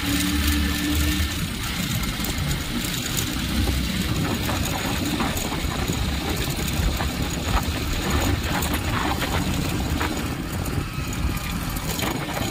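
Vehicle on the move: a steady engine and road-noise rumble.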